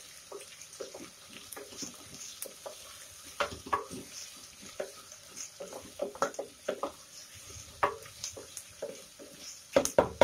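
Wooden spatula stirring and scraping sliced onions in a stainless steel pressure cooker, irregular scrapes and knocks over a faint sizzle of the onions frying in oil and ghee. The strokes come harder and faster near the end.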